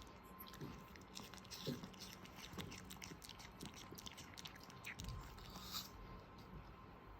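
A pet chewing apple, a run of quick, small crisp crunches that are faint.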